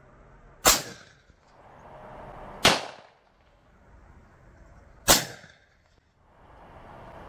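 .45 Colt gunshots from a single-action revolver and a short scoped rifle: three sharp shots, about two to two and a half seconds apart, each followed by a brief echo.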